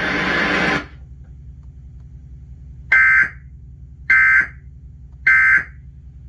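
Emergency Alert System end-of-message signal: three short, shrill digital data bursts (the SAME 'NNNN' code) about a second apart, over a low electrical hum. It marks the close of the broadcast warning.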